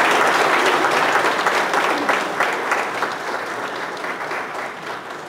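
Audience applauding, loudest at the start and gradually dying away.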